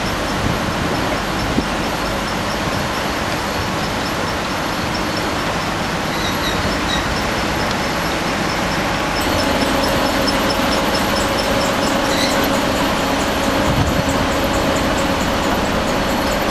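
Steady, dense machinery noise of an aggregate washing and screening plant at work: vibrating screens and conveyor belts. About nine seconds in, the sound changes to a steadier hum with a fast, regular ticking over it.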